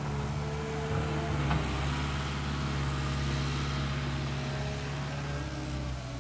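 Cat 289D compact track loader's diesel engine running steadily under load as its grapple lifts a log.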